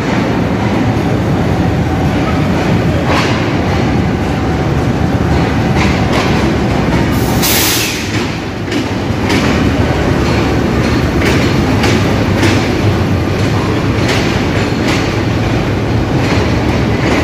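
A Pakistan Railways GEU-20 diesel-electric locomotive and its passenger train arriving along the platform, the engine running and the wheels clicking over rail joints. A short, loud hiss about seven seconds in.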